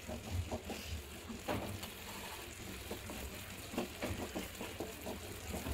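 A wooden spatula stirs and scrapes chopped onion, green chili and tomato in a nonstick frying pan, with irregular taps and scrapes over a faint sizzle of butter. A low rumble runs underneath.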